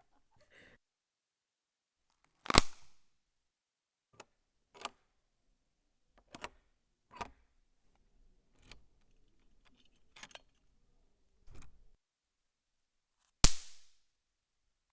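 A series of sharp knocks and clacks at irregular intervals, as handled objects strike one another. Two much louder snapping hits come about two and a half seconds in and near the end.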